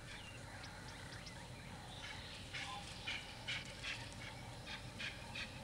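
Faint outdoor ambience: a low steady hum with short high chirps, about two a second, starting about two and a half seconds in.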